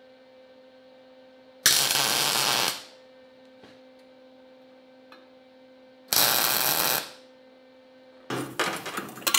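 MIG welder laying two short tack welds that fix a steel bolt, used as a wheel stud, to a steel wheel plate; each tack lasts about a second. A low steady hum sounds between the tacks, and metal clinks near the end as the welded part is handled.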